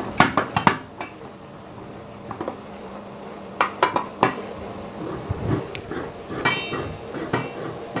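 Lid of an aluminium Panci Presto pressure cooker being seated and its side clamps fastened: a series of metal clanks and clinks, some ringing briefly, with a cluster about four seconds in.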